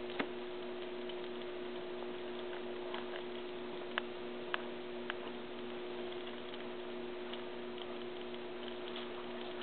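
Baby squirrels gnawing nuts: scattered small ticks of teeth on shell, with a few sharper clicks, over a steady electrical hum.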